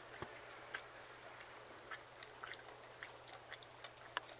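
Dog licking and chewing a frozen dog ice cream treat in a plastic bowl, with irregular small clicks of tongue and teeth against the bowl.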